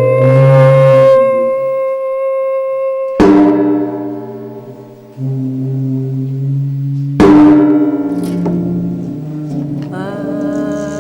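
Slow ambient music: layered sustained tones, with a new chord entering on a sharp attack about three seconds in and again about seven seconds in, over a low drone that shifts in pitch.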